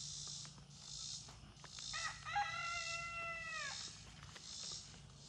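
A rooster crowing once, about two seconds in: a single drawn-out crow of just under two seconds, held level and then dropping in pitch at the end.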